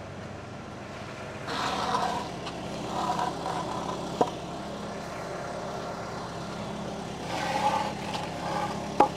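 Tractor engine running steadily, its sound swelling twice as it works the forks, with two sharp knocks.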